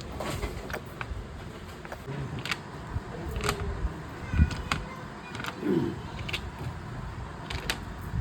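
Scattered light clicks and knocks, about a dozen, irregularly spaced over a steady background noise.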